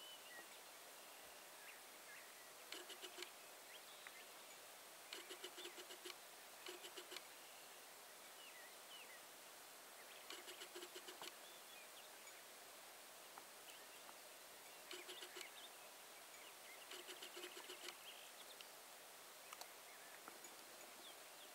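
Wild turkeys feeding close by, giving soft rattling purrs in short bouts every few seconds. Faint high bird chirps are heard now and then.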